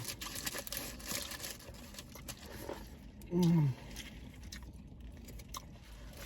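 A person makes one short vocal sound, falling in pitch, about three and a half seconds in while eating a sandwich. Faint crinkling and small clicks run under it.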